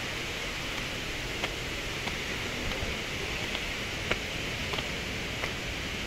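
Steady outdoor background hiss, with a few faint clicks scattered through it.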